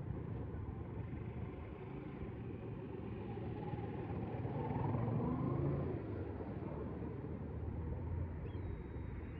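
Steady street traffic rumble, with a vehicle passing that swells to its loudest about halfway through.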